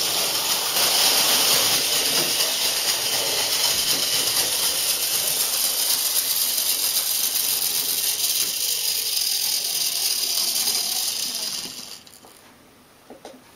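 Motor and gear train of a Mainline OO gauge LNER J72 model tank locomotive running, a steady rattling whirr along with the wheels on the track, which cuts off about twelve seconds in as the engine stops. A couple of faint clicks follow near the end.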